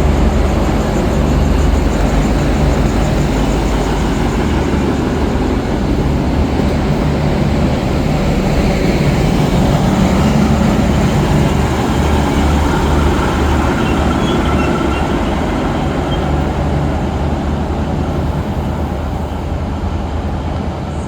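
XPT diesel passenger train running at the platform, a steady low engine drone with rail and wheel noise, easing slightly near the end.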